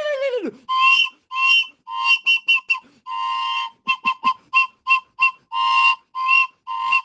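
A shrill whistle blown in a rhythmic run of short blasts and a few longer ones, each a two-note tone with breath noise. It opens on the tail of a loud, wavering call that falls away.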